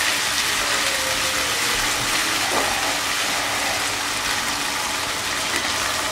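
Frying pan of garlic and ginger paste in hot mustard oil sizzling and hissing steadily, with a little hot water just added to the spices.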